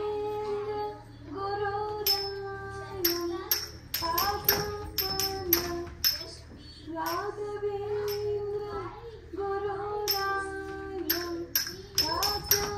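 Bharatanatyam dance music: a high voice sings long held notes that bend between pitches, over sharp rhythmic percussion strikes with a metallic jingle.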